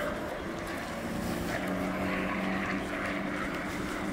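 A steady low engine hum with a constant drone, under a haze of outdoor background noise.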